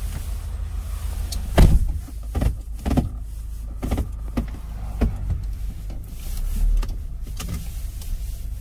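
Car running, heard from inside the cabin as a steady low rumble, with a handful of short knocks and clunks in the first five seconds, the loudest about a second and a half in.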